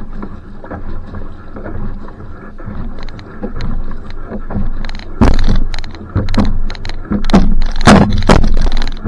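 Va'a outrigger canoe being paddled: paddle strokes splashing through the water with the hull's wash. About five seconds in, the strokes get louder and quicker, about two a second.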